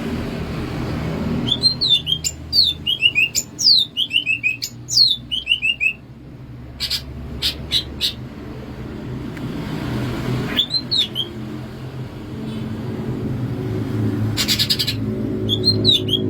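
A cucak ijo (leafbird) singing in quick runs of sharp down-slurred whistles, with a few clicks in the middle, more whistles about two-thirds through and a short buzzy rattle near the end. A steady low hum lies under the song.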